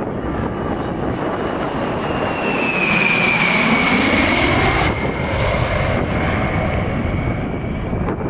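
Military jet aircraft passing by, engines running with a high whine that falls in pitch as it goes past, over a steady rush of engine noise.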